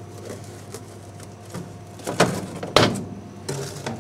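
A cut MDF sheet being lifted and slid off the laser cutter's metal honeycomb bed: two sharp knocks, a little after two seconds and near three seconds, then a short scrape, over a steady machine hum.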